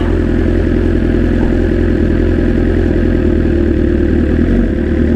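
BMW S1000RR's inline-four engine idling steadily.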